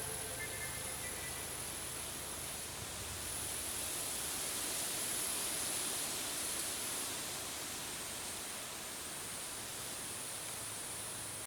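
A steady, even hiss of noise.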